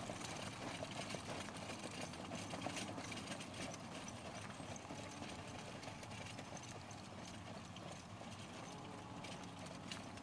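Hoofbeats of a four-in-hand team of German riding ponies trotting on arena sand while pulling a driving carriage: a steady patter of many soft hoof strikes, a little fainter after the first few seconds.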